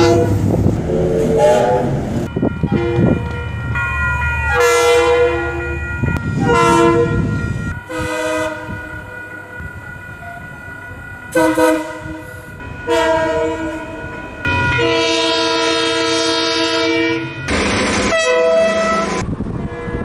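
A run of train horn blasts from different locomotives, about ten in all: multi-tone chord horns giving short toots and several long blasts of two to three seconds, with a diesel locomotive's engine rumble under the first few seconds.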